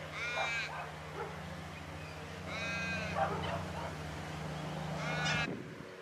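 Long-billed corellas calling: three short cries about two and a half seconds apart, each rising and falling in pitch, over a steady low hum.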